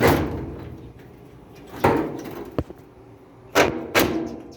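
Retaining clip being fitted back onto a Roper washer's cabinet: five knocks, each with a short ringing tail, and one sharp click about halfway through, as the clip is worked and snapped into place.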